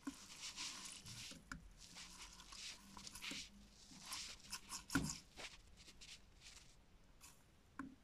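Damp laundry being pulled out of a front-loading washing machine drum: fabric rustling and rubbing in irregular bursts, with small clicks and one louder knock about five seconds in.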